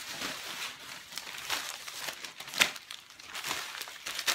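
Strips of dictionary-page paper on a tutu skirt rustling and crinkling as the skirt is wrapped around the waist and its fabric band handled. A few sharper crackles stand out, the loudest about two and a half seconds in.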